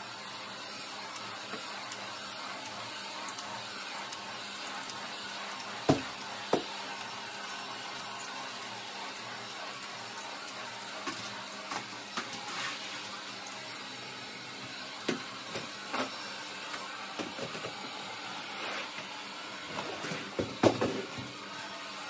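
Small stick vacuum cleaner running steadily as it is pushed over a rug, with a few sharp knocks and clicks, the loudest cluster near the end.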